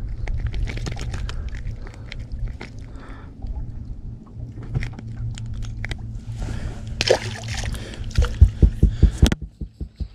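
Clicks and knocks of handling in a small fishing boat over a steady low hum. About seven seconds in there is a brief slosh of water. Near the end comes a fast run of loud low thumps, about five a second.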